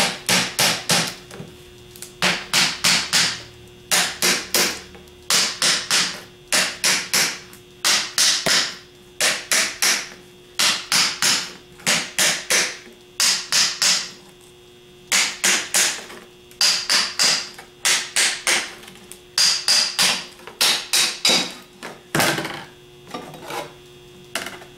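Ball-peen hammer striking the aluminum front housing of a Ford 6G alternator, in quick runs of three or four sharp blows about every second and a half, knocking the rectifier-stator assembly loose from the shell. Near the end the runs give way to a single blow and a few lighter knocks.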